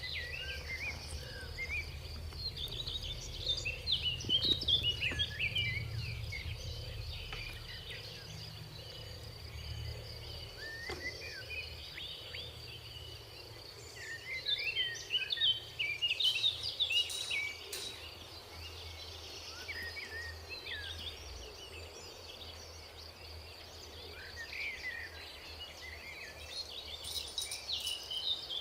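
Outdoor ambience of many small birds chirping and twittering, in busier flurries now and then, over a steady high insect drone and a low rumble that fades after the first few seconds.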